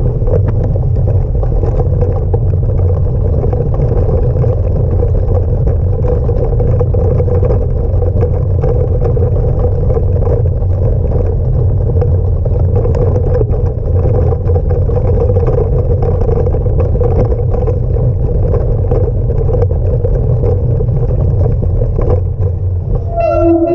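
Bicycle rolling over cobblestones: a loud, steady rumble with many small rattles.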